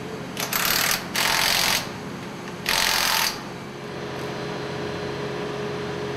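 Workshop power tool run in four short bursts, each a loud hiss lasting about half a second to a second. From about two-thirds of the way in, a steady machinery hum with one held tone takes over.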